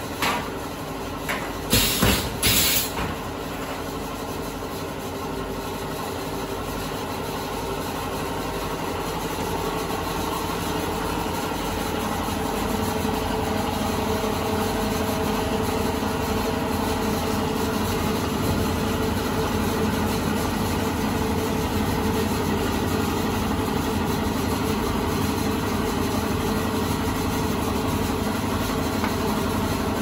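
A few short bursts of air hissing from a pneumatic semi-automatic aerosol crimping machine in the first three seconds, then a steady machine hum with a fixed tone that grows slightly louder.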